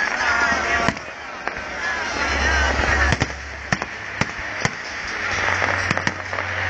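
Fireworks exploding overhead: many sharp bangs at uneven intervals over a steady background din.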